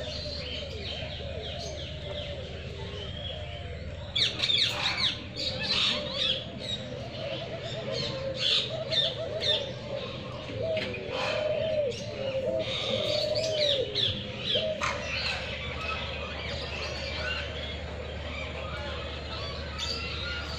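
Many captive birds of mixed kinds chirping and calling together in an aviary: sharp high chirps, thickest through the middle, over a lower warbling call that keeps repeating.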